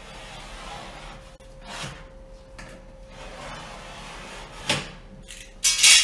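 Utility knife scoring the face paper of a sheet of half-inch drywall along a metal drywall square: a long scraping stroke in the first three seconds, then a sharp knock and a loud scrape near the end as the board is handled.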